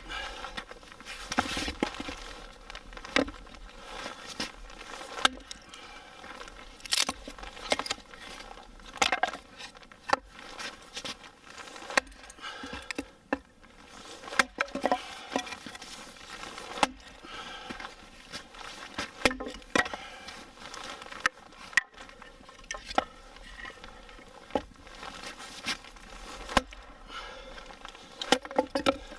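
Wood cracking and knocking: irregular sharp cracks and snaps, a strong one every second or two, over a steady crackling patter.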